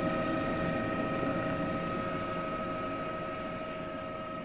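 Steady helicopter cabin drone with a constant high whine, slowly fading.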